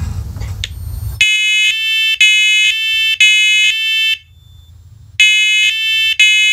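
First Alert combination smoke and carbon monoxide alarm in test mode, its horn sounding the three-beep fire pattern: three beeps about a second apart, a pause of about a second, then three more. A low rumbling noise comes before the first beep.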